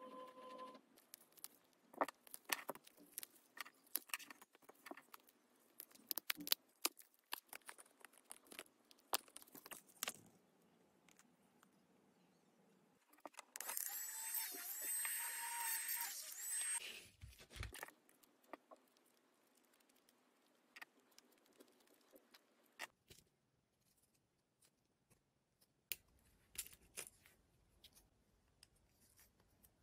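Scattered taps and clicks of small resin pieces being handled, then a small electric hand drill runs for about four seconds around the middle with a high whine that wavers in pitch, boring holes into cured resin cat-paw charms for screw eye pins. Light clicks of small metal findings follow near the end.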